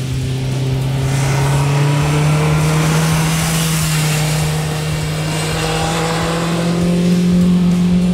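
BMW S1000R's inline-four engine pulling under steady acceleration, its note climbing slowly and evenly in pitch, with a swell of tyre and wind noise in the first half as the bike goes by.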